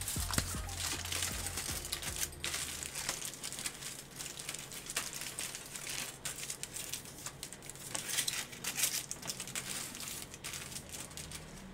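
Aluminium foil being pressed and smoothed flat by hand onto a wire rack, crinkling and crackling with many small sharp clicks.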